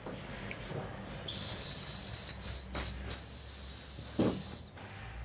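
A person whistling a high, steady note, held about a second, then two short chirps and a longer held note of about a second and a half.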